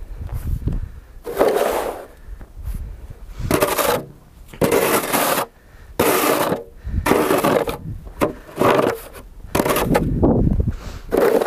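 Red plastic snow shovel scraping across a packed, snow-covered driveway and pushing snow, in repeated strokes about once a second.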